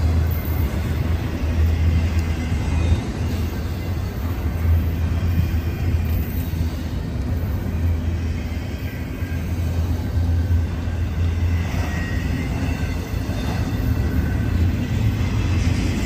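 Double-stack intermodal container train rolling past at close range: a steady rumble of the well cars' wheels on the rails.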